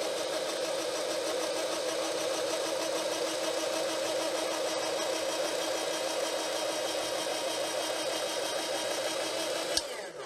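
Presto Professional SaladShooter electric slicer-shredder running steadily while it shreds a peeled potato. Near the end it is switched off with a click and the motor winds down.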